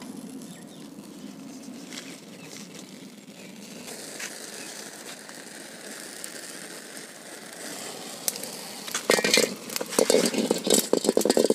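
Dry twigs and leaves crackling as a small wood fire catches. About nine seconds in, a run of loud knocks and scrapes: a metal kadai is set on the concrete blocks over the fire and sticks are pushed in under it.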